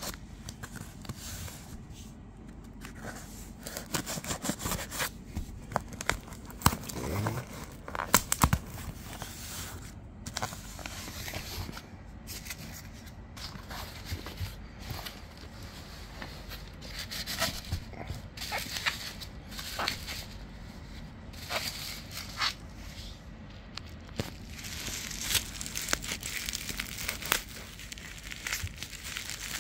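Hands opening a cardboard shipping box and handling the bubble-wrapped, plastic-covered package inside: irregular rustling, crinkling and scraping, with a few sharper cracks about seven to eight seconds in.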